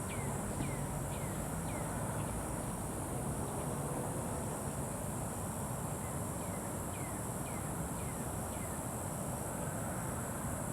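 Swamp ambience: a steady high-pitched insect drone, with short falling chirps in runs of three or four about half a second apart, near the start and again about seven seconds in.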